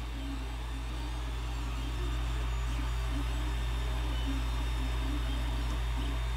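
Creality Ender 3 Pro 3D printer running a print: a steady fan hum and hiss, with its stepper motors whining in short tones that come and go as the print head moves.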